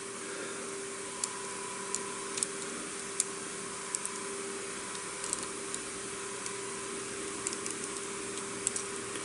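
Light, irregular plastic clicks and ticks from the jointed parts of a Transformers action figure's leg being handled, folded and fitted together, over a steady background hum.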